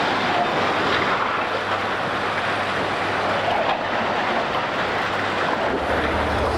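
Heavy demolition machinery working: a loud, continuous clatter and grinding of metal with scraping squeals, and an engine hum coming up near the end.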